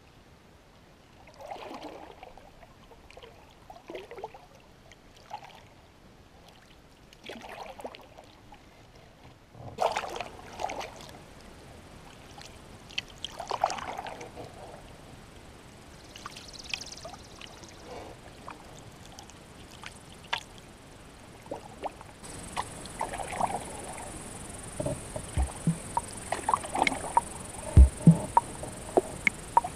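Wooden canoe paddle stroking through calm water: a soft swish every couple of seconds, with small drips and clicks between strokes that come more often near the end.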